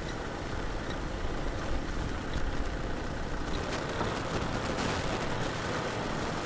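Kubota M6040 SU tractor's four-cylinder diesel engine running steadily under load as it pulls a disc plough through wet paddy mud.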